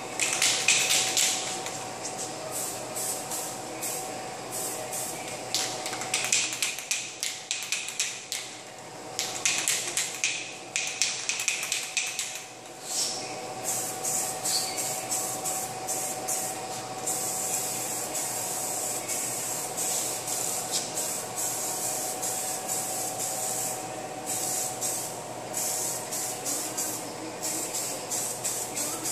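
Aerosol spray paint can hissing in many short bursts, then in longer, steadier passes with brief pauses from a little past halfway, over a steady hum.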